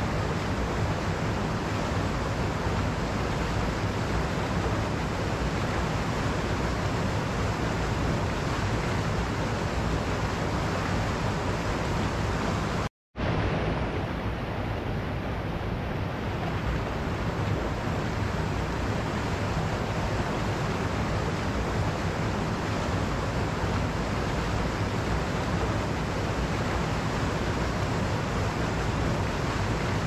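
Mountain stream rushing over rocks and small cascades, a steady full rushing of water. It cuts out to silence for a split second about 13 seconds in, then carries on.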